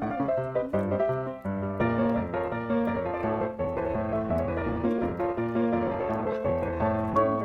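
Background piano music: a steady run of keyboard notes.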